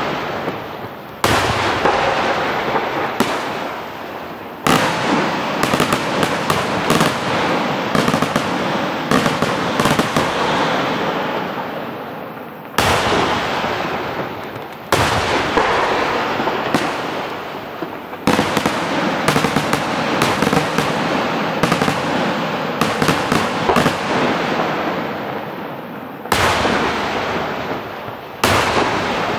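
Aerial fireworks shells bursting overhead in a rapid, irregular barrage: loud sharp bangs, each followed by a dense crackling tail that dies away over a few seconds.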